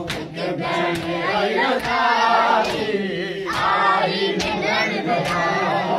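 A group of men chanting a noha in unison, with sharp hand strikes on bare chests about once a second keeping the beat, as in standing matam.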